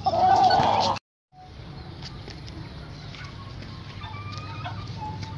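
Chickens clucking. A loud cry fills the first second and stops abruptly; after that come short, faint clucks over a low steady hum.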